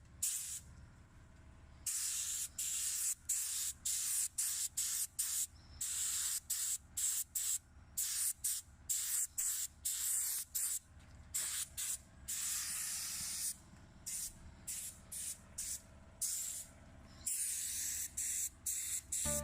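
Spray gun hissing in many short bursts, with a few longer passes, as a trigger is pulled and released while spraying Nano-Clear protective clear coating.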